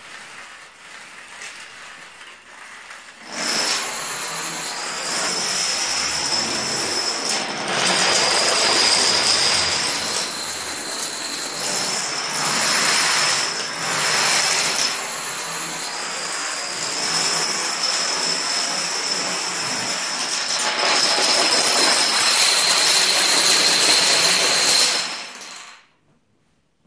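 Chain of toppling dominoes and playing cards. Light clicking for the first few seconds, then a loud, dense, continuous clatter as a large field of dominoes falls, stopping abruptly just before the end.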